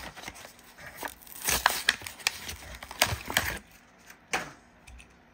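Plastic blister of a Hot Wheels card being torn open and peeled off its cardboard backing: crinkling, crackling and tearing, loudest about one and a half and three seconds in, then quieter with one short rustle about four seconds in.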